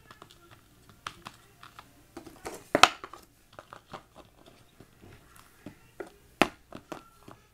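Plastic toys and small toy boxes being handled and set down on a hard floor: scattered light clicks and taps, with a louder knock a little under three seconds in and another sharp one about six and a half seconds in.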